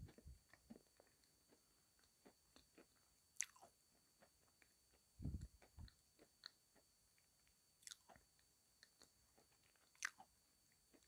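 Faint chewing of a mouthful of Sevryukovo chalk: scattered soft crunches and mouth clicks, with a few sharper crunches and a couple of low thumps about halfway through.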